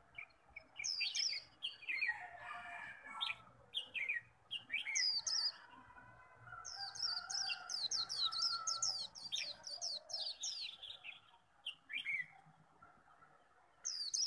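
Caged white-eye singing its chattering 'líu' song: quick, high, falling chirps in irregular phrases, with a fast run of notes in the middle.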